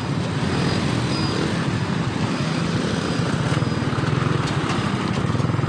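Motorcycle engine running steadily at low speed, with the noise of surrounding road traffic.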